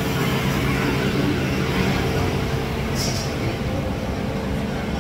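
Steady street traffic noise, with a short hiss about three seconds in.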